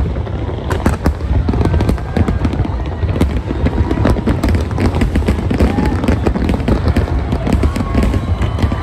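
Aerial fireworks bursting in quick succession: a dense run of cracks and bangs over a steady low rumble.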